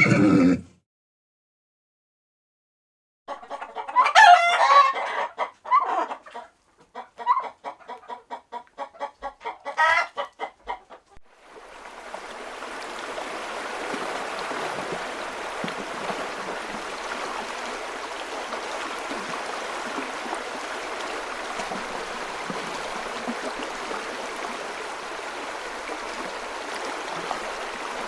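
A rooster crows, followed by a run of rapid clucking, about three clucks a second. From about twelve seconds in, a steady rushing sound like a flowing stream takes over.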